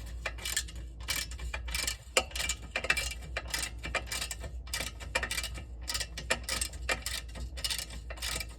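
Hand socket ratchet clicking in quick runs of ticks as a bolt is worked by hand.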